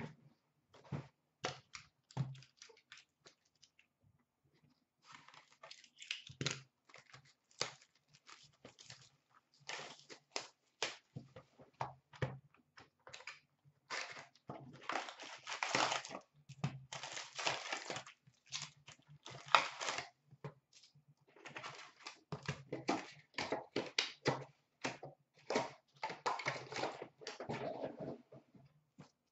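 Hands opening a box of 2015-16 Upper Deck SP Authentic hockey cards and handling its foil packs: crinkling, tearing and short cardboard clicks in irregular bursts, busier in the second half.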